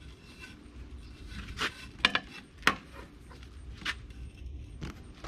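Sling patio chair's metal frame being handled and fitted: a handful of sharp metallic clinks and knocks, the loudest about two seconds in.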